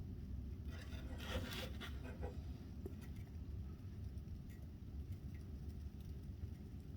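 Pry bar scraping and clicking faintly against the suspension as a sway bar link is levered up and down, a cluster of short scrapes about one to two seconds in, over a steady low rumble. No clunk: this link is tight.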